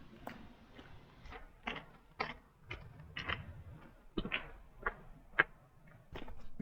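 Footsteps crunching along a woodland trail, short crisp steps about twice a second at an uneven pace.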